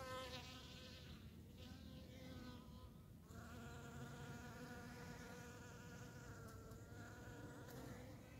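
Honeybee buzzing in flight, a faint steady hum that wavers in pitch and fades briefly a couple of times before picking up again.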